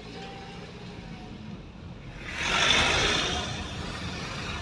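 Car engine running low in the background while another vehicle drives past close by, its tyre and engine noise rising to a rushing peak about halfway through and then fading.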